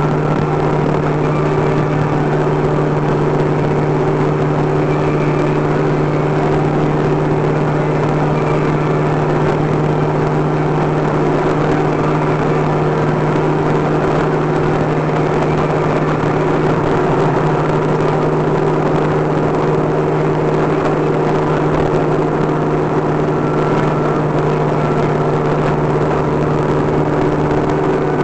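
Open-top convertible cruising at steady highway speed: a constant engine drone with wind and tyre noise.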